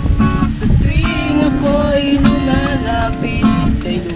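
Acoustic guitar being strummed with a voice singing along.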